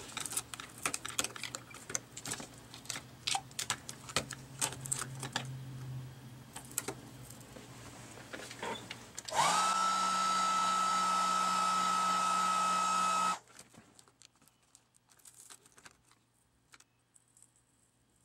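Rapid small clicks and taps of parts being handled. About nine seconds in, a hand-held hot-air blower switches on: its motor spins up to a steady high whine over a rush of air, and the sound cuts off suddenly about four seconds later, likely heat being applied to soften the adhesive holding the cracked digitizer. Faint handling clicks follow.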